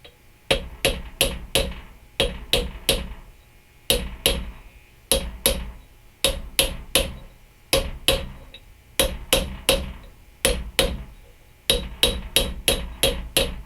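Hammer blows driving a new outer wheel bearing race into a truck's front hub, in quick runs of three or four sharp, ringing metal strikes with short pauses between. The race is not yet bottomed out in its bore; the strikes change in sound once it seats.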